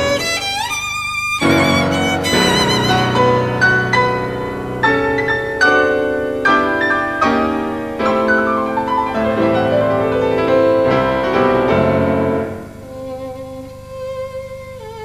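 Violin playing a melody with vibrato over piano accompaniment, dropping to a softer passage about twelve seconds in.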